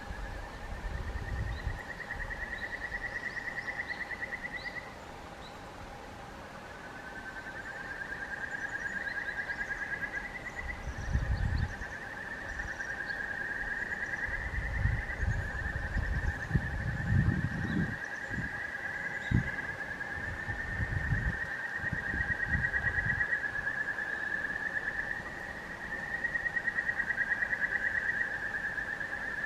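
Outdoor animal calls: long, fast trills at one pitch, phrase after phrase with hardly a break, over a faint steady hum, with a few low rumbles in the middle.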